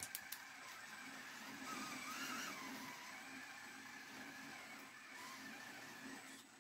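RGT Bowler 1/10 RC crawler's electric motor and geartrain whining as it drives on a steep ramp. The pitch rises and falls about two seconds in. A few sharp clicks come at the very start.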